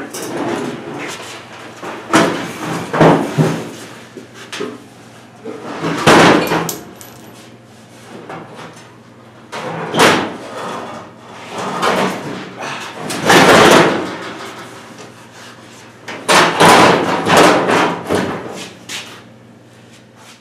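Rusty sheet-metal truck nose banging and rattling against its mounts as it is pushed and shifted into place, in about half a dozen bursts of clanks with quieter gaps between. The nose is catching on a new bracket.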